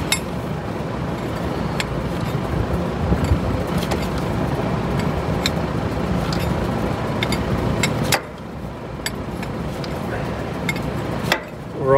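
A big fan running steadily, with scattered light metallic clicks of a wrench working on hose fittings. The fan noise drops suddenly about eight seconds in.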